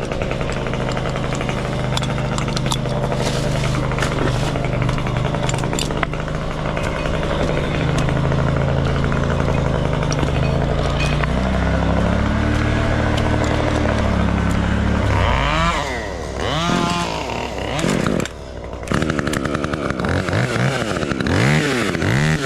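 Two-stroke chainsaw engine running at a steady low pitch, shifting pitch a little past halfway, then revved up and down repeatedly near the end.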